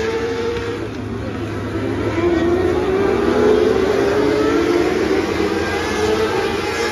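A pack of small winged sprint cars racing on a dirt oval, engines revving high, their pitch rising and falling as they throttle on and off. The sound grows loudest about halfway through as the pack passes close.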